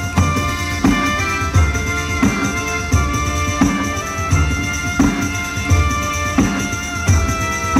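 Live southern Italian folk music: a wind instrument and accordion carry a melody over an even drum beat, about one beat every 0.7 seconds.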